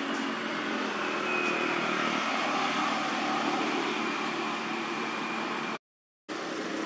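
Steady outdoor background noise. A faint high hiss stops about two seconds in, and the sound cuts out to silence for about half a second near the end.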